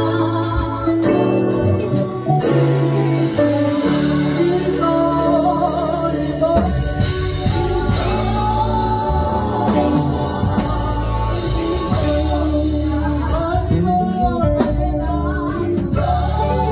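Live gospel band playing: a woman sings the melody into a microphone over electronic keyboards, electric bass guitar and drum kit. The bass and low keyboard notes grow fuller about six seconds in.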